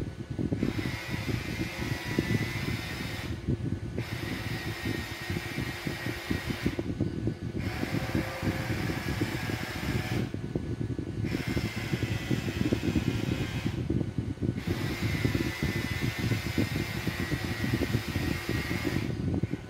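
Headlight leveling motor in a retrofitted twin-projector headlamp whirring in five runs of about three to four seconds with short pauses between, a thin whine in each run, as the beam is moved; it runs smoothly. A steady hum lies underneath.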